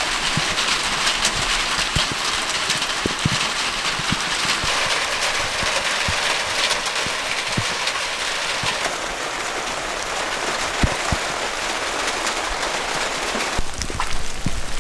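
Rain falling steadily on the ground, an even hiss with many separate drops ticking. The hiss thins a little about two-thirds of the way through, and a low rumble rises near the end.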